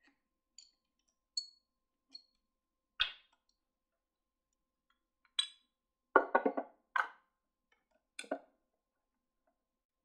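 A few light metallic clinks, then hard knocks and clatters as a plaster dental model is handled against the metal fittings and set down into the round metal model pot of a dental thermoforming machine. The loudest is a quick cluster of knocks about six seconds in, with a double knock a little after eight seconds.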